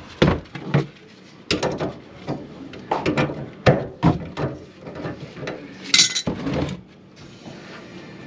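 Hard objects clattering and clinking as they are handled: irregular knocks and clanks in several bursts, stopping about a second before the end.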